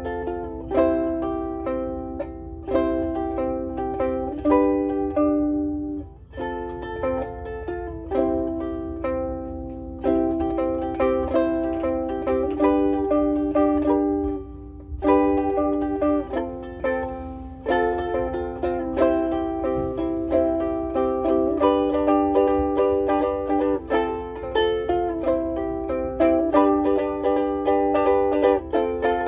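Mahogany soprano ukulele played in chords, struck over and over, with short breaks about six seconds in and again about halfway through.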